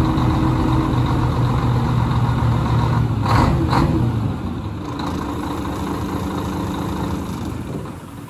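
Scania 113 360 truck's diesel straight-six idling steadily, with two short hisses a little over three seconds in. After them the engine's low drone drops away and the sound grows quieter toward the end.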